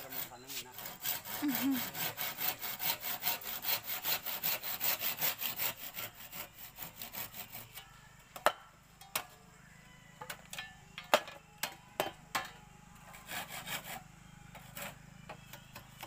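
Hand saw cutting a bamboo pole in quick strokes, about five a second, for the first six or seven seconds. After that, a few scattered sharp knocks.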